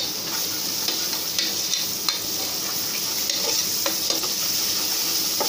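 Onions, green chillies and ginger-garlic paste sizzling steadily in hot oil and ghee in an aluminium pressure cooker, stirred with a spatula that makes a few light scrapes and taps against the pan.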